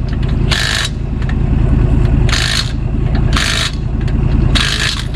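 A vehicle engine running steadily as a low rumble, with four short bursts of hiss over it.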